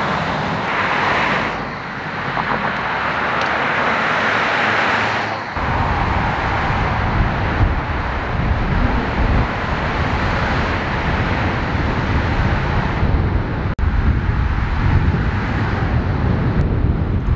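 Cars passing on a road, their noise swelling and fading twice. About five seconds in it changes to a heavy, fluctuating low rumble of wind and road noise from riding a bicycle through a road tunnel.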